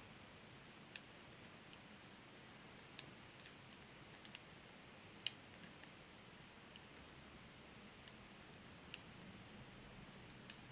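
Knitting needles clicking lightly and irregularly as stitches are worked, a dozen or so small sharp clicks, the loudest about five seconds and nine seconds in.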